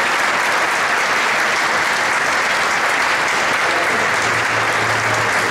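A crowd applauding, a steady, dense clapping that follows the end of a speech.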